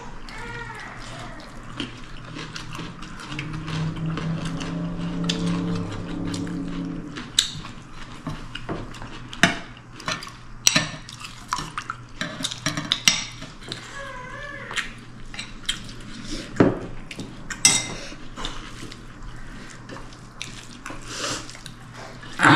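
Kitchen clatter: dishes, pans and utensils knocking and clinking at irregular intervals. A low steady hum runs for a few seconds, starting about three seconds in.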